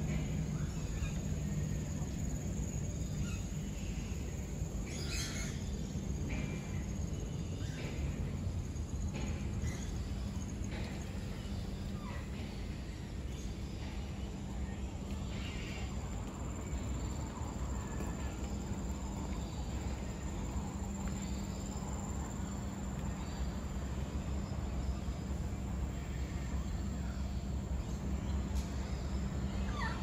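Scattered bird calls and chirps in a walk-through aviary, over a steady low hum.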